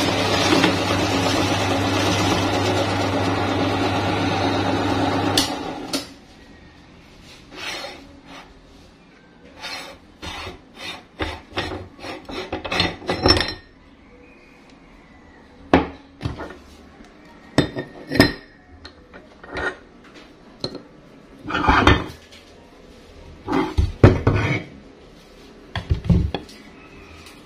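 Electric meat grinder's motor running with a steady hum, cutting off about five and a half seconds in. Then a string of metal clanks and knocks as the steel grinder head is taken apart: ring, plate and auger being handled.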